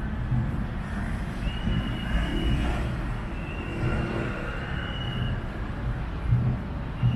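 City street ambience: road traffic passing with a steady rumble, and a high, steady tone that sounds on and off for a second or two at a time.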